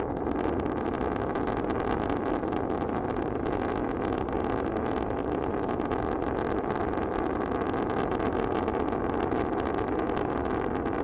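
SpaceX Raptor 2 methane-fuelled rocket engine firing on a test stand during a static test: a loud, steady, unbroken noise that holds the same level throughout.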